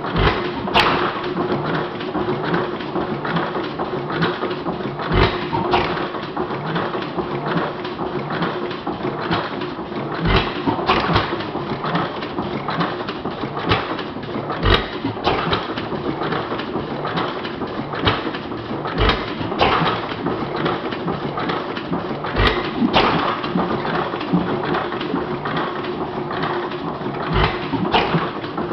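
Model hit-and-miss gas engine with hot-tube ignition running: a low thump every four to five seconds as it fires, and it coasts between power strokes with a steady clicking and clatter of its moving parts.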